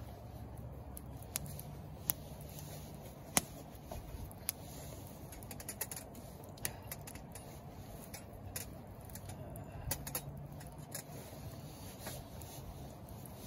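Firewood crackling as it burns in a small metal fire pit: irregular sharp pops over a steady low hiss, with one louder pop about three seconds in.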